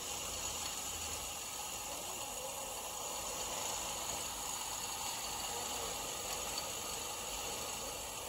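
Steady background hiss with no distinct sound events.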